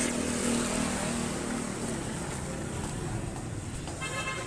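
Road traffic in a busy market street, with motor vehicle engines running. A vehicle horn starts sounding near the end.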